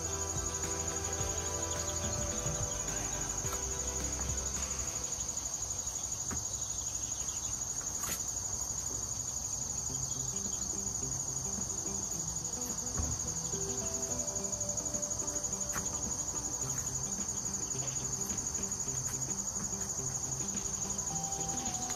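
Insects chirring in a steady, high-pitched, unbroken drone, over soft music with held notes.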